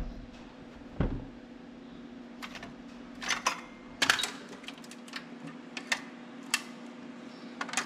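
Hand ratchet wrench clicking in short runs as bolts are worked on a tractor engine, over a steady low hum.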